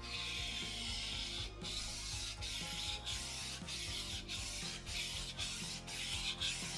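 Kitchen knife blade pushed back and forth on a wet whetstone: a gritty scraping rasp in repeated strokes, one long stroke first and then about one and a half strokes a second. Faint background music underneath.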